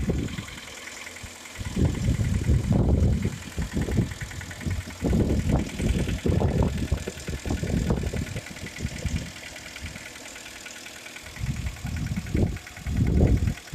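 Hyundai ix35 petrol engine idling after a cold start with a rapid, even knock, the kind the owner says comes loudly at start-up after standing overnight and fades as the engine warms. Wind buffets the microphone in irregular low gusts, the loudest part of the sound, about two, five and twelve seconds in.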